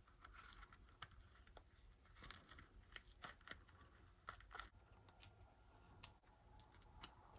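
Faint, irregular small clicks and light rubbing from hand assembly of a miniature RC crawler wheel: a rubber tire and a copper-wire weight ring are worked onto a small beadlock rim, and a small screwdriver turns its tiny screws.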